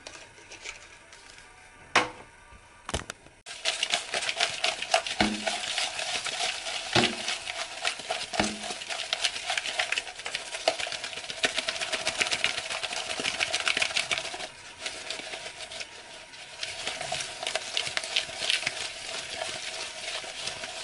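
Seasoned raw shrimp being shaken and tossed in a plastic tub to coat them, a fast continuous rattling clatter that starts a few seconds in, with a few dull knocks of the tub before and during it.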